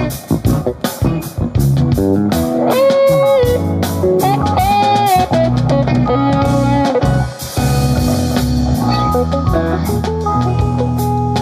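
Band playing instrumentally: electric guitar over bass and a drum kit, with guitar notes bent upward and held twice in the first half and a cymbal wash about two-thirds through.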